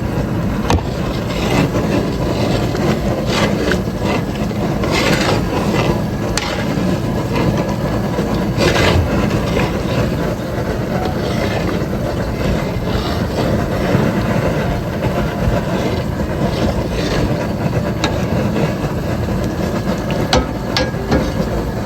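A big 5-gallon pot of jambalaya being stirred, the utensil scraping and knocking irregularly along the bottom so the rice doesn't stick, over a steady rushing noise.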